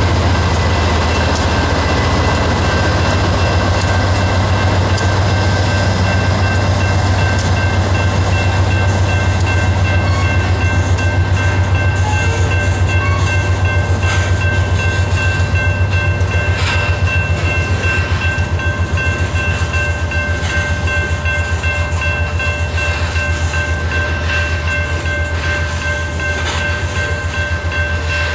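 Loaded coal hopper cars of a freight train rolling past close by. There is a deep steady rumble with wheels clicking over the rail joints, and a thin steady high whine above it.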